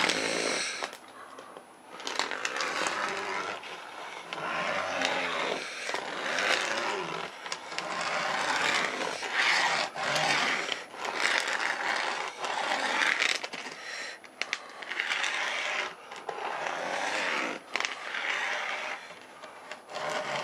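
HO-scale auto-rack freight cars being pushed by hand along model railroad track, rolling and scraping on the rails in repeated strokes of a second or two, with a few sharp clicks between them.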